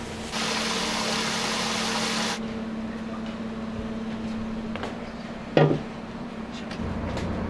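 Restaurant stove work: a dense hiss that starts and cuts off sharply after about two seconds, then a single metal clang about five and a half seconds in, over a steady low hum.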